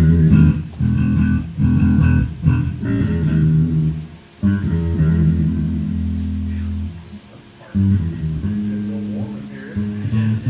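Bass guitar playing a line of low plucked notes. A note is held for a couple of seconds past the middle, with short breaks just before it and about two-thirds of the way in.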